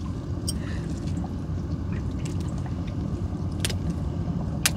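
Water dripping and splashing off a gill net being hauled in by hand, with scattered small clicks and taps, two sharper ones late on, over a steady low rumble.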